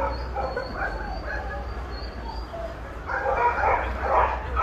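Dogs barking and yipping in short, scattered calls over a steady low rumble.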